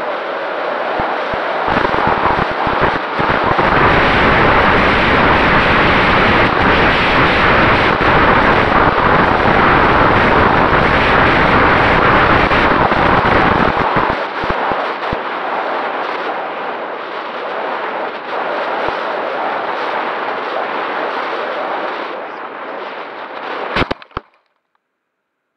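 Airflow rushing and buffeting over the microphone of a camera riding on an RC glider in flight, heaviest and rumbling through the first half, then easing. Near the end a few sharp knocks as the glider comes down into brush, and the sound cuts off.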